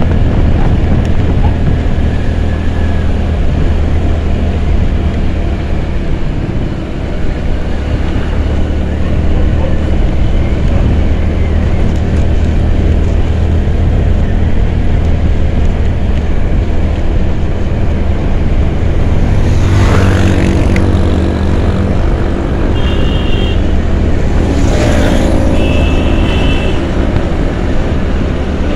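Riding a scooter through town traffic: steady wind rush and road rumble. Other vehicles pass with brief swelling rushes, and there are a couple of short horn beeps near the end.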